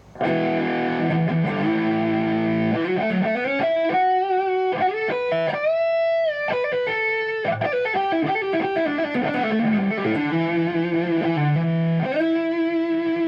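Electric guitar on its neck beryllium humbucker through a Kemper profiler's low-gain crunch amp profile, playing chords and a single-note lead line. A high note is held with vibrato midway, and a chord rings out near the end.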